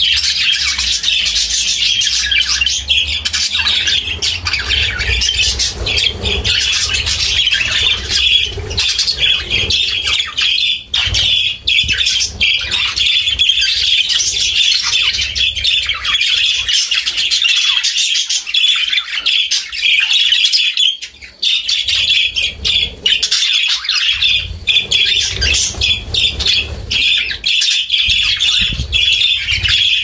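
Budgerigars chattering and warbling without a break, a dense run of quick chirps and scratchy squawks, with a brief lull about two-thirds of the way through.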